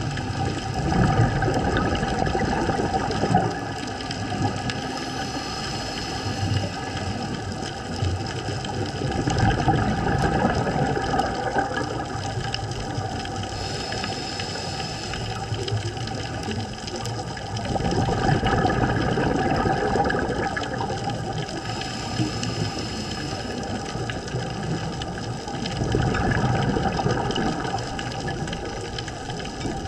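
Scuba diver breathing through a regulator underwater: four surges of exhaled bubbles, about every eight to nine seconds, over a steady faint hum.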